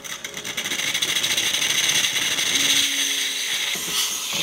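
Steam wand of a De'Longhi Magnifica espresso machine hissing loudly as steam blasts into the open air the moment the steam knob is opened. The wand is being purged before the milk is frothed.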